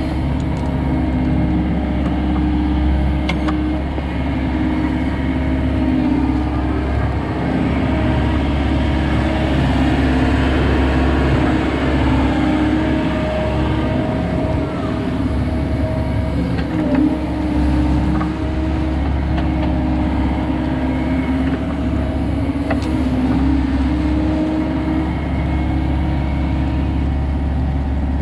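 Volvo 140 excavator's diesel engine running steadily, its pitch shifting slightly now and then as the machine works.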